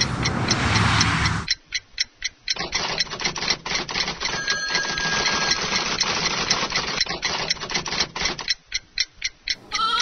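Rapid, evenly spaced mechanical ticking, several ticks a second. It runs over a low rumble that cuts off abruptly about a second and a half in, and a bleating animal call starts right at the end.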